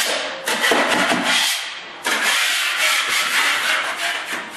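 Drywall knife scraping down dried joint compound in an inside corner, knocking off the high spots before the second coat. Two long rasping strokes, the second starting about two seconds in.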